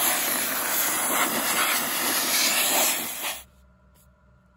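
Harbor Freight gravity-feed hand-held sandblaster hissing steadily as compressed air drives regular baking soda against a rusty steel wheel. The hiss cuts off abruptly about three and a half seconds in.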